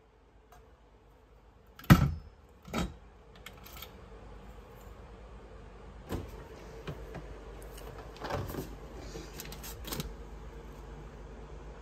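Small steel safe's door shut with a heavy metallic thud about two seconds in, followed by a second, lighter clunk. Later come a few light clicks and knocks as the safe is locked with its key and a small fridge door is opened.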